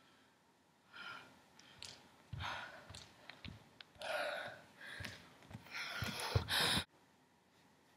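A woman's breathing, gasps and sighs after dancing, with a few soft footfalls as she walks across the studio floor; the sound cuts off suddenly near the end.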